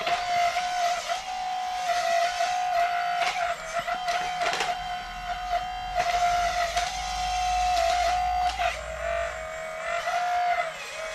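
Steady high whine of an RC construction model's electric motor, dipping briefly in pitch a few times as it takes load, with scattered light clicks.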